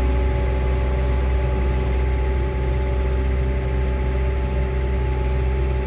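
Crop sprayer's engine running steadily under way, heard from inside its cab: a constant low drone with several steady hum tones.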